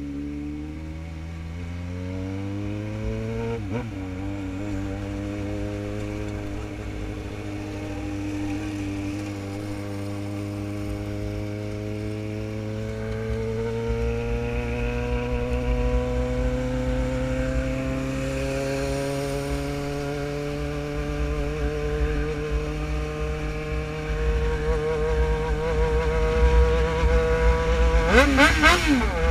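Motorcycle engine pulling under acceleration. Its pitch climbs for a few seconds, breaks briefly as at a gear change, then rises slowly and steadily, over wind rushing on the microphone. Near the end a short, louder rush of noise cuts across it.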